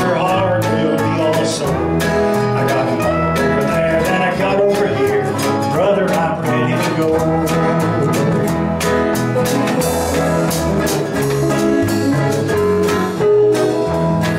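Live country gospel band playing an instrumental passage: strummed acoustic guitar over electric bass, drums and keyboard, with a steady beat.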